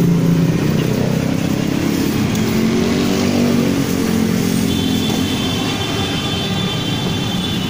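Motor vehicle engines running in street traffic, their pitch drifting up and down as they rev and pass. A thin, steady high tone joins about five seconds in.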